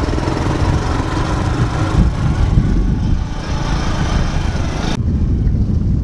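Motorcycle engine running on a ride along a dirt track, heard from the bike with wind buffeting the microphone in a steady low rumble. About five seconds in the higher hiss drops away abruptly while the rumble goes on.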